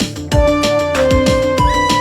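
Background music with a steady electronic drum beat and held synth melody notes.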